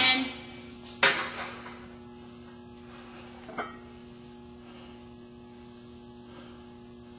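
Steady electrical hum, with two short, loud rushing sounds in the first second or so and a faint click a few seconds in.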